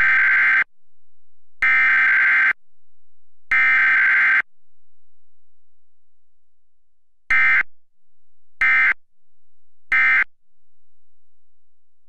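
Emergency Alert System SAME header: three loud, buzzy data bursts of about a second each, then three shorter bursts about a second and a half apart, announcing a required weekly test.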